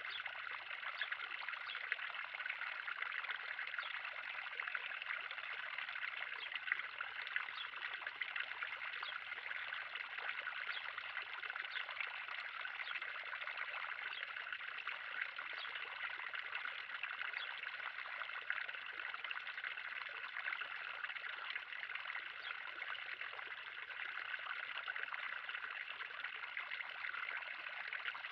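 Water running and splashing steadily in a backyard pond, a continuous trickling with many small droplet splashes.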